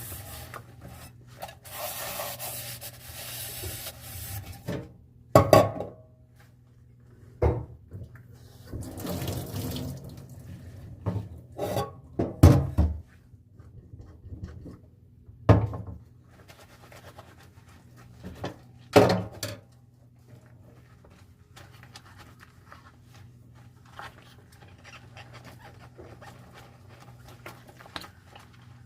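Dishes being washed by hand at a sink: scrubbing and water splashing, broken by several sharp knocks of dishes bumped or set down. After about two-thirds of the way through, only faint small clinks remain.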